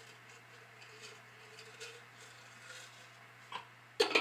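A small spice jar being handled in the hands: faint rustles and light ticks, then a sharp click and a louder short clack near the end.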